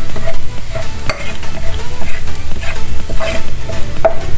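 Minced garlic sizzling as it fries in oil in a wide metal pan, with a spatula scraping and stirring it across the pan several times.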